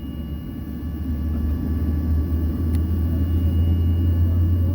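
Boeing 737-800's CFM56-7B jet engine heard from inside the cabin, a low steady rumble that grows gradually louder as the engine spools up.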